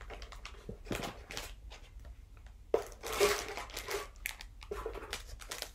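Packaging crinkling and rustling in irregular crackles as merchandise is handled and unwrapped, loudest about three seconds in.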